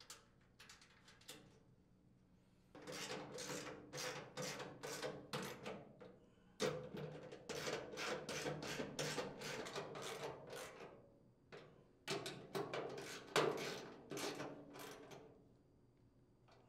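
Socket ratchet clicking in three long runs of rapid strokes as the hopper's mounting nuts are tightened, with a few light clicks in the first second or so.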